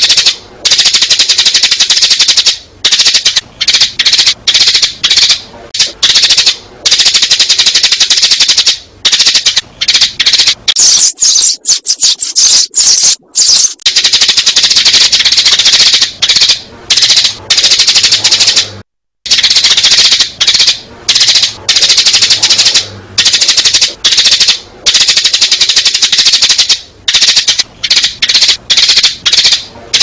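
Sparrows chirping loudly and rapidly, many high calls running together into a dense, continuous chatter with short gaps, and one brief silent break about two-thirds of the way through.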